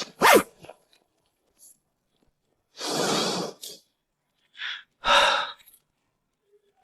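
A man sighing: a long breathy exhale about three seconds in, then two shorter breathy sounds about two seconds later.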